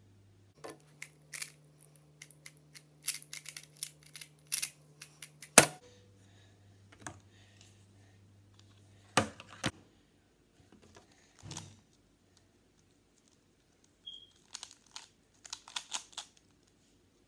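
Plastic speed puzzles being turned: quick runs of small plastic clicks and clacks, with a few sharper knocks in between. Near the end come clicks of a GAN Pyraminx being twisted.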